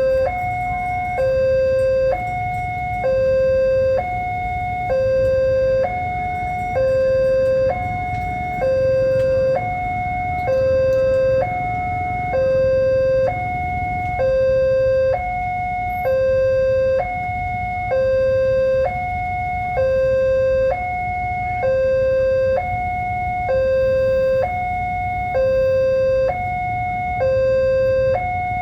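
Railway level-crossing warning alarm sounding a steady two-tone signal, a lower and a higher tone alternating, one pair about every two seconds, over a steady low rumble.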